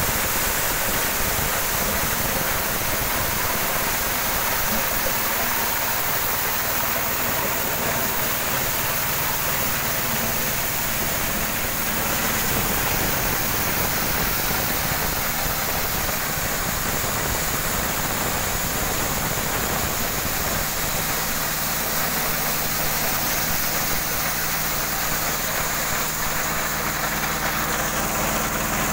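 Engine-driven corn sheller running steadily under load as cobs are fed into its hopper: the engine runs under the continuous noisy rattle and rush of kernels being stripped from the cobs and thrown out.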